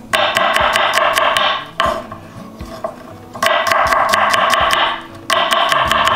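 Chef's knife rapidly chopping garlic on a wooden cutting board, in three quick runs of strikes with short pauses between.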